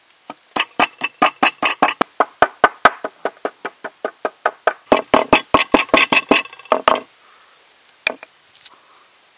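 Wooden pestle pounding black peppercorns in a stone mortar: rapid, even knocks, about six a second, that stop about seven seconds in, followed by a single knock about a second later.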